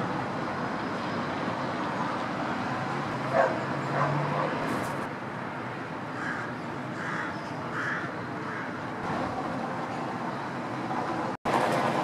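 Dawn city ambience: a steady hum of distant traffic with a few distant animal calls, a sharp one about three seconds in and three short ones in a row about a second apart near the middle. Near the end the sound cuts out for a moment and comes back louder.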